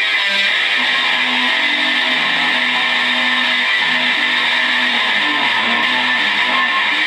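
Heavily distorted electric guitar playing held low notes that shift in pitch every second or so, under a constant loud wash of noise.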